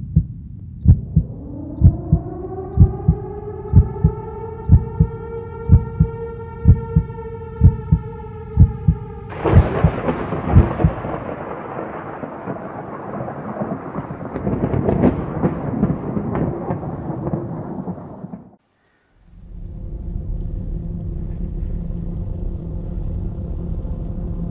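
Cinematic intro sound design: evenly spaced heartbeat-like thumps under a drone that swells and rises in pitch, then a sudden thunder-like rumbling crash about nine seconds in that fades away. After a brief dropout, a steady low droning hum sets in.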